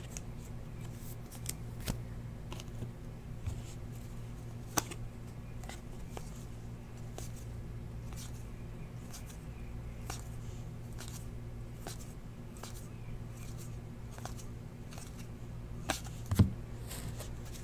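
Stiff trading cards being slid and flipped through a stack by hand: scattered faint clicks and flicks of card edges over a steady low hum. A sharper tick about five seconds in and a louder knock near the end.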